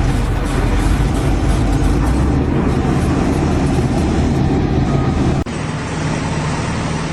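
Engine of a heavy vehicle or machine running steadily, with an abrupt cut about five and a half seconds in to another stretch of similar engine noise.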